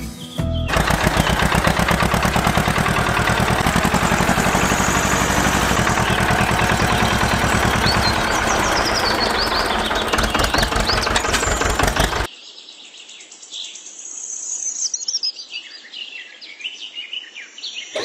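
A tractor engine starts up just after the beginning and runs steadily with a rapid pulsing beat, then cuts off abruptly about twelve seconds in. Birds chirp throughout and are left on their own after the engine stops.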